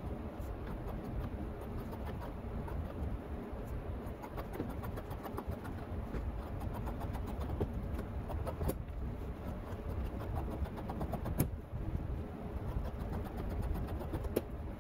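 Upholstery shears cutting through leather hide, a run of snips and clicks with a couple of sharper clicks, over a low steady rumble.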